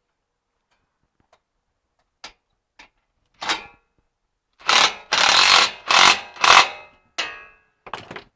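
Cordless power drill driving bolts home in a run of short bursts, a few clicks before the first one.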